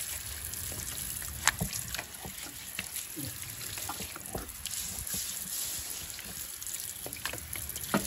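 Water splashing and dripping as a long-bristled wheel brush scrubs a wet alloy car wheel, with scattered light knocks, the sharpest about a second and a half in and near the end.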